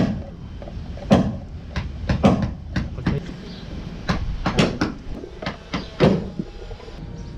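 Irregular knocks and clatter as a metal paint can, its lid and a plastic paint tray are handled on a wooden plank while primer is poured and stirred, about ten sharp knocks in all.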